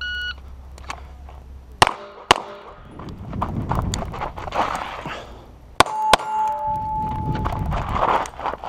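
A shot timer gives a short beep. The Wilson Combat CQB 9mm 1911 pistol is then fired in two double-taps, shots about half a second apart within each pair and the pairs about four seconds apart.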